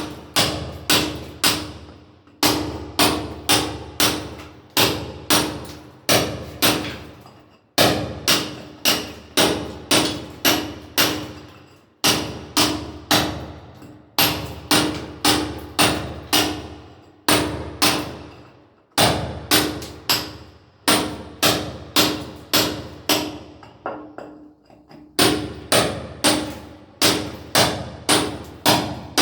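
Repeated hammer blows in quick runs of about two to three strikes a second, each with a short ring, broken by brief pauses every few seconds.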